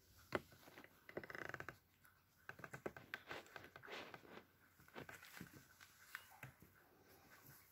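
Faint scratching and light clicks of a three-and-a-half-week-old puppy chewing and nosing a rubber chew toy on carpet.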